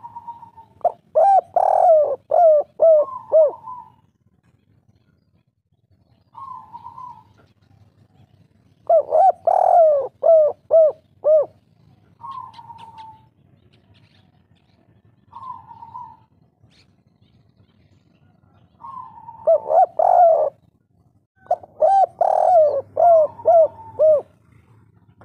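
Spotted dove cooing in the kuk-3 style. It gives repeated song phrases, each a quick rolling run of hooked coos, with single short coos in the pauses between them.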